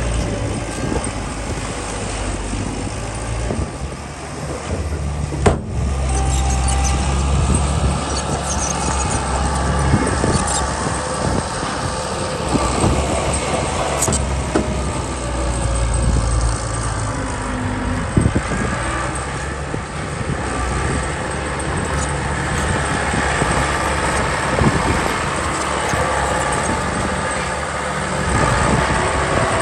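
Heavy diesel machinery running steadily, with scattered knocks and one sharp bang about five and a half seconds in.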